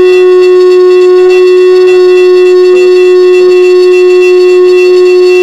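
Conch shell (shankha) blown in one long, loud, unwavering note, sounded during the aarti of a Hindu puja.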